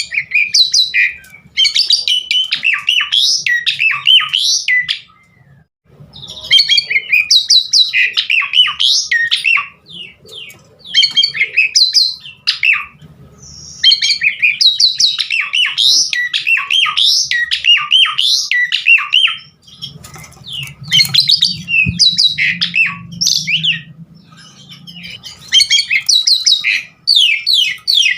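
Asian pied starling (jalak suren) singing in long phrases of rapid whistled and chattering notes, broken by short pauses every few seconds.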